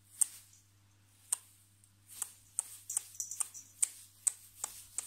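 Sharp clicks or taps: two in the first couple of seconds, then coming faster at about two to three a second, over a faint steady low hum.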